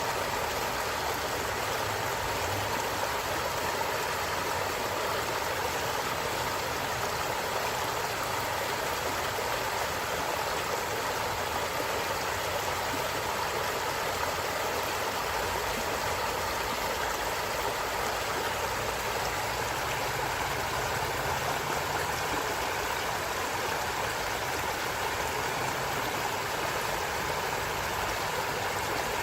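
A stream running with a steady, unbroken rush of water.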